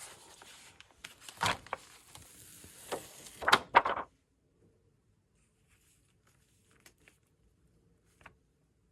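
Crinkly rustling and crackling from gel printing work, such as paper or dry leaves being handled, with several sharper crackles. It stops about four seconds in, leaving a few faint clicks.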